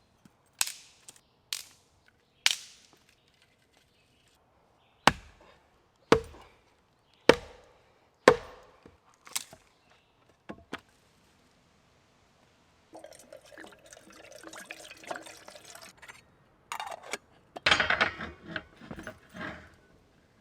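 A series of sharp knocks or cracks, roughly one a second, followed by several seconds of rustling and crackling.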